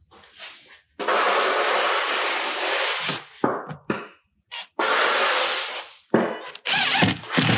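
Makita cordless driver running in short bursts as it drives screws into a metal drawer pull, with one longer run and several shorter ones.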